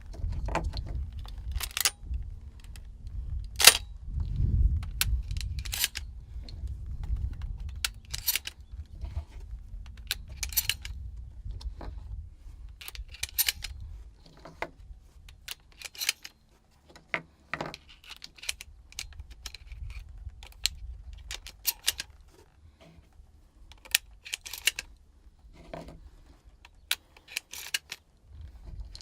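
Irregular sharp clicks and clinks, like small hard objects being handled, with one louder knock about four seconds in. A low rumble underlies the first twelve seconds.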